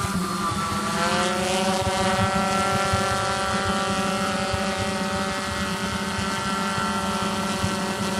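Quadcopter running with a steady whine of several held tones; the pitch rises during the first second, then holds.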